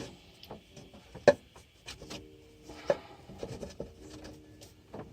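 Clicks, knocks and rubbing of a plastic part being worked loose by hand from around a power steering pump, with two sharper knocks about a second and a half and three seconds in.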